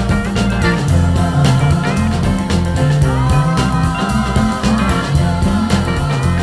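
Instrumental break of a country-rock song: a guitar lead with bending, gliding notes over a walking bass line and a steady drum beat.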